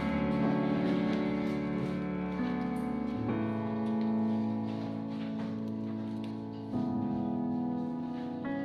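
Soft background music: sustained piano or keyboard chords that change every few seconds.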